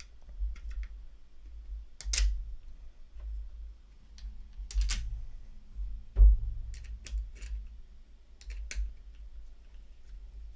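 Irregular clicks and taps of a tool and small metal screws being worked into a paintball marker's frame, with low knocks from handling the marker.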